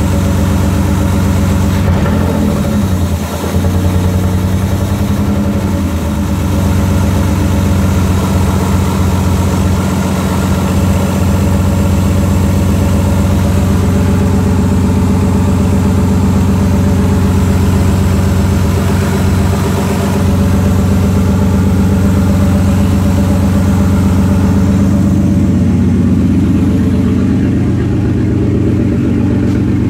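A 3.0-litre V6 idling steadily and loud, its exhaust open at the disconnected Y-pipe with no muffler or rear catalytic converter in line.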